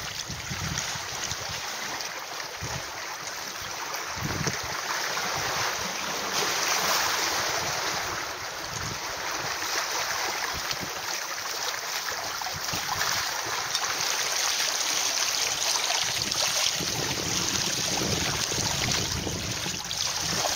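Steady rushing of wind and water aboard a sailing catamaran under way, with wind buffeting the microphone in low thumps.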